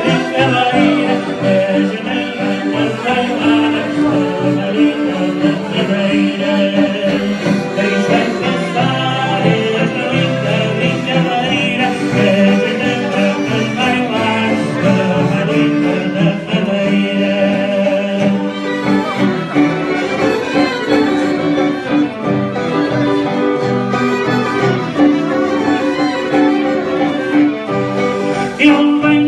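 Dance music from a folk band, a sustained melody line over accompaniment.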